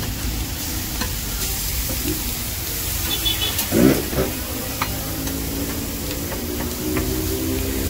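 Bacon, sliced sausage and burger patties sizzling steadily on a hot flat-top griddle, with a few light clicks and a brief louder sound about halfway through.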